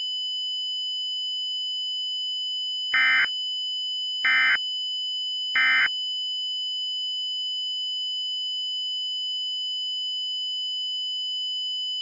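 Emergency Alert System end-of-message data bursts: three short, screechy digital warbles about a second and a half apart, marking the close of the alert. A steady high-pitched tone runs underneath.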